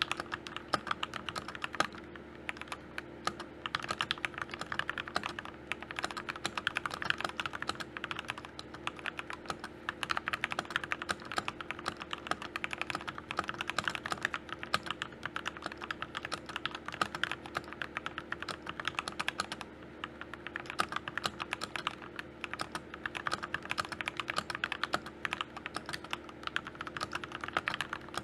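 Continuous fast typing on a budget custom mechanical keyboard: a Rakk Lam-ang Pro board fitted with Gateron Yellow Pro linear switches and PBT Cherry-profile keycaps. It is stock and unmodded, an out-of-the-box typing sound test, with a couple of brief pauses in the keystrokes.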